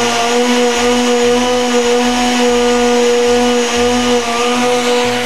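Countertop blender running steadily at full speed, a constant motor hum, liquefying beetroot slices in water.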